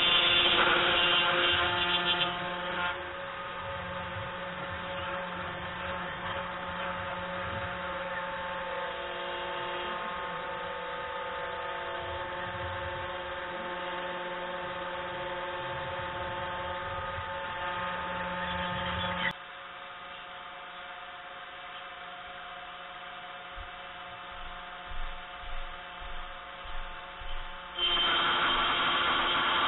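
3018 Pro desktop CNC router running, its small brushed DC spindle motor and stepper motors giving a steady hum with several held tones. It is louder for the first couple of seconds, drops suddenly about two-thirds through, and comes back loud near the end. The machine is drilling where it shouldn't, a sign of its stepper motors losing steps.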